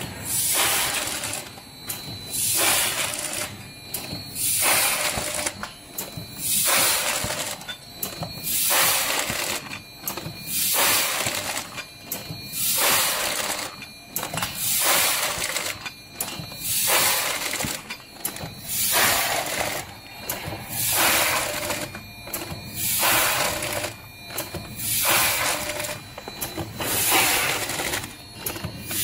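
Vertical form-fill-seal snack packing machine running in steady cycles, about one every two seconds; each cycle is a burst of hissing, rustling noise as a bag is made, filled and sealed, with a faint steady whine under it.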